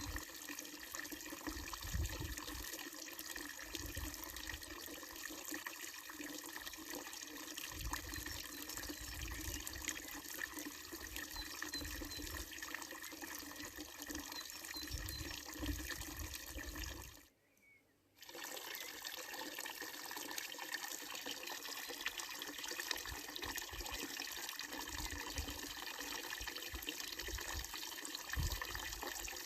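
Water running steadily from a village fountain's spout and splashing into its wooden trough. The sound drops out for about a second roughly two thirds of the way through, then resumes unchanged.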